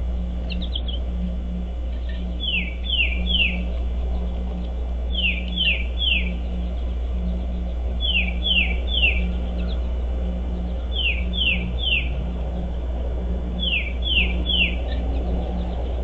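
A songbird singing a short phrase of three clear, falling whistled notes, repeated five times at a steady pace of about one phrase every three seconds, over a steady low hum.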